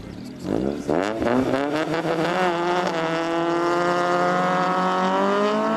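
Honda car engines revved up at a drag-race start line, climbing in pitch over the first few seconds and then held steady at high revs, ready for the launch.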